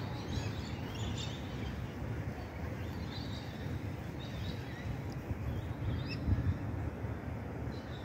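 Wild birds calling with scattered faint chirps and short whistles, over a steady low rumble.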